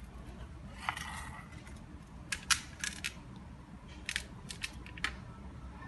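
Plastic toy animals clicking and clattering against a stainless steel tray as a hand rummages through them: a short scrape about a second in, then two quick runs of sharp clicks.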